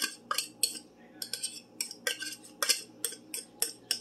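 Metal fork scraping and clinking inside an open tuna can, knocking the tuna out: an irregular run of sharp clinks and short scrapes, a few a second.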